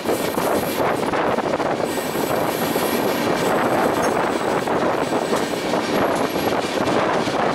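Moving train: a steady, dense rushing noise of wheels on track and air.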